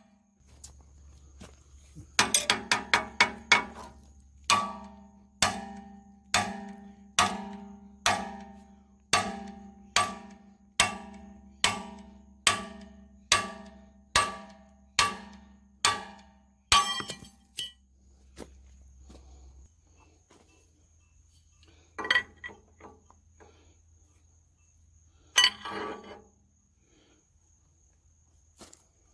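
Ringing metal-on-metal blows on a shop-built gib key puller clamped to the stuck gib key in the flywheel hub of an International Type M 6 HP engine, working the key loose. A quick run of blows, then a steady beat of about one a second for some twelve seconds, then a short flurry and two last spaced blows.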